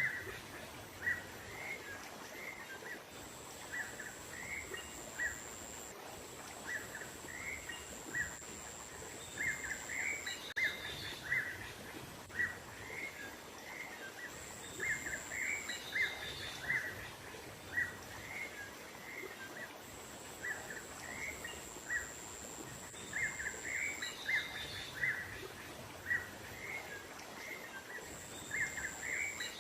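Small songbirds giving quick runs of short chirps, in clusters every few seconds, as a bird-luring call. A thin, steady, very high tone comes and goes behind them, over a soft background hiss of outdoor ambience.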